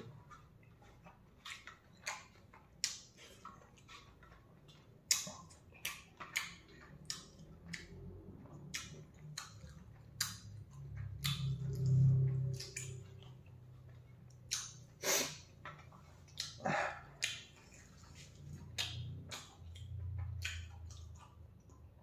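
A person chewing food noisily: irregular sharp lip smacks and mouth clicks, a few every couple of seconds, with a low hum from the throat around the middle and again near the end.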